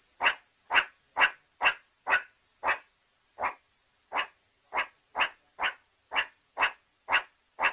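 Meerkat calling: a long run of short, sharp calls repeated about twice a second, with slightly longer gaps around the middle.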